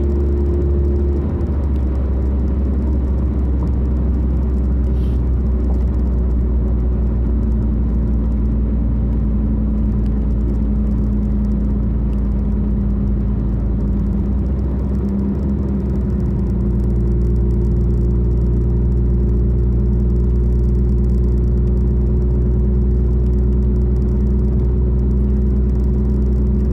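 A car cruising on a highway, heard from inside the cabin: a steady low rumble of engine and tyre noise with a constant hum, which shifts slightly in pitch a couple of times.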